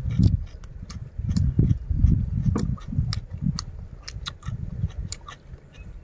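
Chewing of crunchy raw cucumber close to the microphone: many sharp, irregular crisp clicks over low, muffled thuds.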